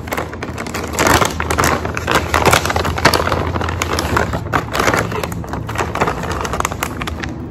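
Plastic dog-treat pouch crinkling and crackling as it is handled and opened, with many sharp crackles throughout.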